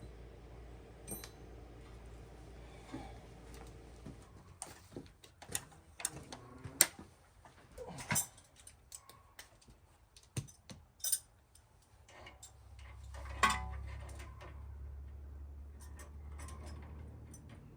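Irregular metallic clinks and knocks of hand tools and steering parts being handled, with a sharp clink about seven seconds in and a louder knock around thirteen seconds, after which a low steady hum sets in.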